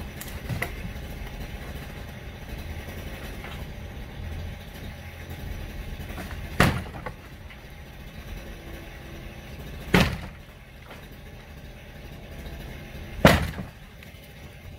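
Three loud demolition knocks, evenly spaced about three and a half seconds apart, each with a short ringing tail, over a steady low engine rumble.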